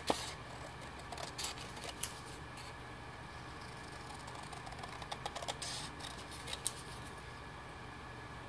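Scissors snipping through thin cardstock in short, sharp clicks: a few in the first two seconds, then a run of them about five to seven seconds in.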